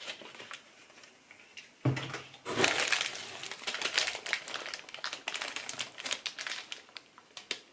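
Plastic food packaging crinkling and rustling as groceries are rummaged through in a cardboard box, with a soft bump about two seconds in as the handling starts.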